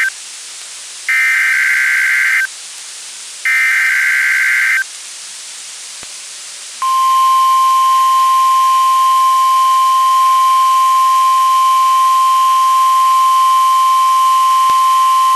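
NOAA Weather Radio Required Weekly Test tones. First come two bursts of SAME digital header data, each about a second and a half of harsh buzzing warble. After a short pause of hiss, the steady 1050 Hz warning alarm tone sounds for about nine seconds.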